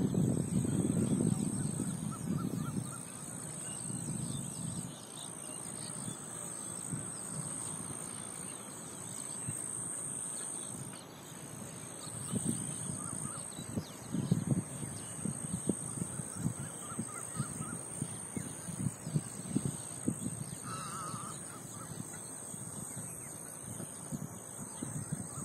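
Open-air ambience at a lakeshore: a few short bird calls, one wavering call near the end, over an irregular low rumbling in gusts and a steady high-pitched tone.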